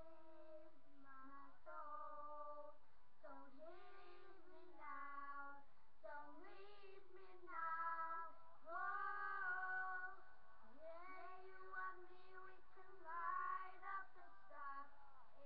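A single high voice singing unaccompanied: held, sliding notes with short breaks between phrases, louder in the middle and again near the end.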